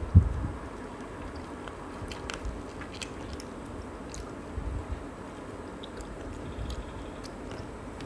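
Close-up eating sounds of a cooked spiny lobster: chewing and sucking meat from the shell, with scattered sharp clicks and cracks as the hard shell pieces are pulled apart by hand. A single loud low thump comes just after the start.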